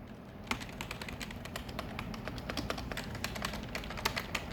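Fast typing on a Redragon Karura K502 silent membrane keyboard: a quick, uneven run of quiet key taps starting about half a second in.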